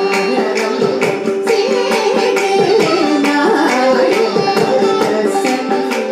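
Carnatic music in raga Arabhi: mridangam and ghatam strokes keep a steady rhythm under a melodic line with sliding ornaments, over a steady drone.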